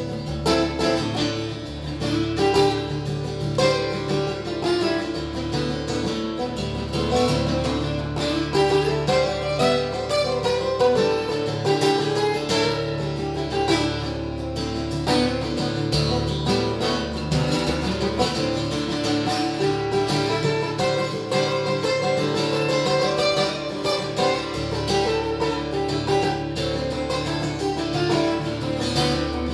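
Solo acoustic guitar playing a steady run of plucked notes over a low droning bass.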